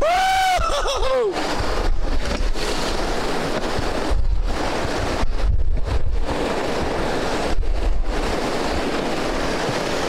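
Whitewater rapids rushing around a rowed boat, with wind gusting on the microphone. In the first second a person lets out a loud whoop that is held and then falls in pitch.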